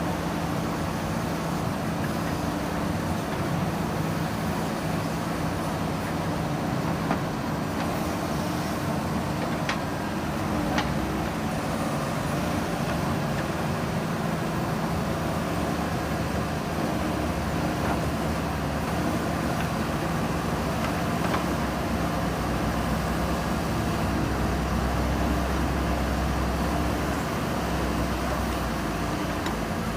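Diesel engine of a JCB 3DX backhoe loader running steadily while it digs soil, with a few sharp knocks in the first third and a deeper rumble swelling near the end.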